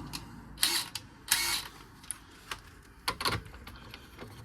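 Sharp metallic clicks and clinks of a socket and ratchet being worked on a suspension bolt, with two short rasping bursts in the first second and a half and a quick cluster of clicks about three seconds in.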